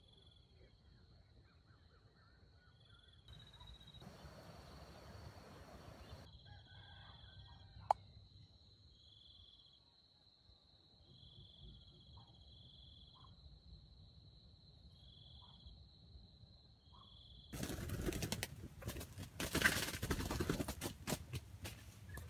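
A steady high insect tone with short chirps repeating every second or so, in quiet outdoor surroundings. About three-quarters of the way through, a loud burst of rustling and clattering begins and carries on to the end.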